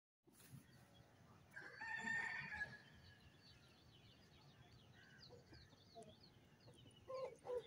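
A fowl gives one long, drawn-out call lasting about a second, starting about a second and a half in.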